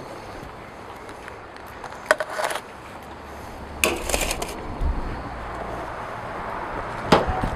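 A few short clicks and rattles as metal grill tongs knock against a gas grill's grate and crinkle aluminium-foil packets while the packets are lifted off the grill.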